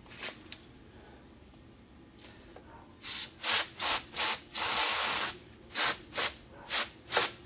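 Aerosol carburetor cleaner being sprayed at the fuel line of an outboard motor: a run of short hissing spray bursts beginning about three seconds in, with one longer spray of nearly a second among them.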